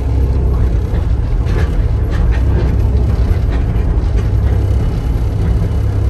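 Komatsu PC60-7C excavator's 4D95LE diesel engine running steadily, mostly low-pitched, as the hydraulic boom and bucket are worked, with a few light knocks in the middle.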